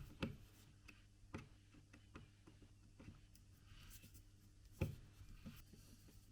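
Sparse light clicks and knocks from tools and parts being handled on a workbench, spaced about a second apart, with the strongest knock near five seconds in and a faint brief scraping just before it. A low steady hum lies underneath.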